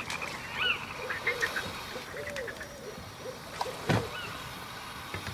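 Frogs croaking in short rise-and-fall calls that thin out and stop about halfway through, the frogs falling silent. A single sharp knock comes near the four-second mark.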